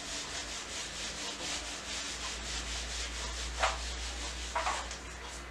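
A handheld duster wiping marker off a whiteboard in quick back-and-forth strokes, a rhythmic rubbing swish of about four strokes a second.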